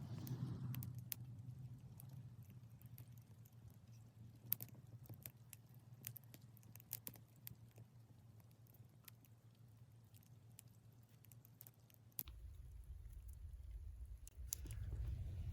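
Small wood fire crackling faintly: scattered sharp pops and ticks over a low steady hum. A low rumbling noise joins about twelve seconds in.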